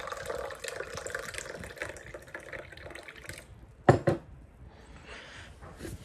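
Liquid poured from a plastic pitcher into a stemmed glass, a steady splashing that stops about three and a half seconds in. Just before the four-second mark come two sharp knocks close together as the pitcher is set down on the wooden desk.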